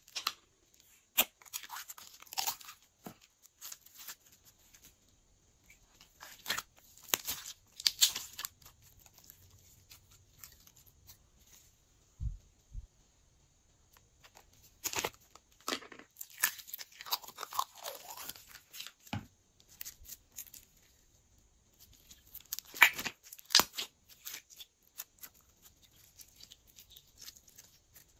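Plastic slime tubes being handled and squeezed in the hands, the plastic crackling and clicking in irregular bursts with quiet gaps between.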